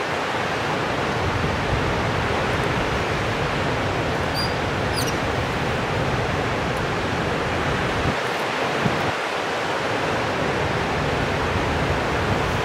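Steady, even rushing noise with no pitch, with a brief high chirp about four to five seconds in.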